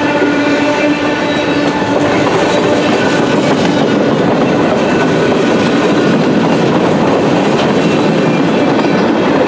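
Freight cars of a long mixed freight train rolling past: a steady loud rumble and clatter of steel wheels on the rails. A held ringing tone over it fades out about two seconds in and comes back near the end.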